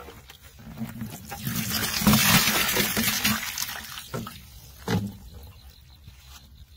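Water poured from a cut-open plastic bottle trap into a plastic bucket, splashing; it builds up, is loudest midway and tails off. A single sharp knock follows about a second after the pour ends.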